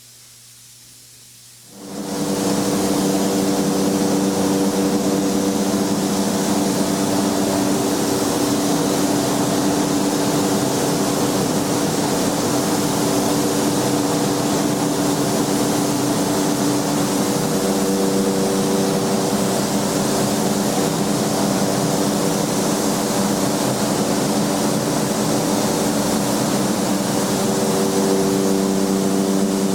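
A steady machine drone, an even hiss with a constant low hum, starting about two seconds in after a brief quiet and running unchanged.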